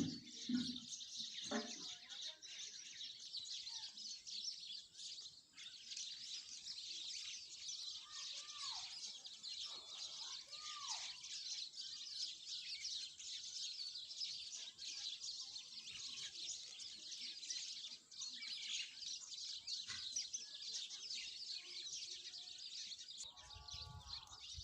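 A flock of small birds chirping densely and without pause, with two lower arched calls about a third of the way in and a short, low voice-like call near the end.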